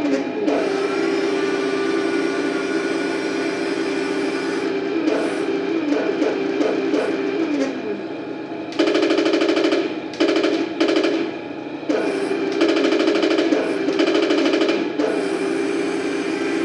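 A Heng Long 1:16 Challenger 2 RC tank's electronic sound unit plays a steady simulated diesel engine idle through its small speaker, with the simulated turret-traverse sound as the turret turns. From about nine to fifteen seconds in come several rapid bursts of simulated machine-gun fire.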